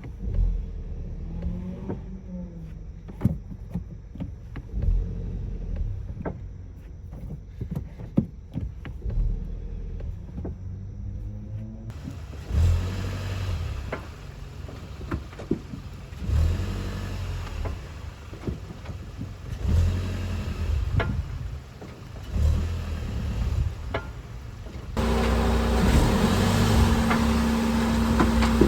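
Brake pads clunking in a car's caliper brackets as it shifts between drive and reverse and brakes: repeated sharp knocks over the car's low running noise. The new pads were made to the wrong tolerances and move up and down in the bracket.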